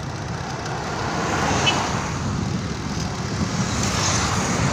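Wind rushing over the microphone of a bicycle rider heading downhill, a steady low rumble, with road noise from an approaching car swelling toward the end.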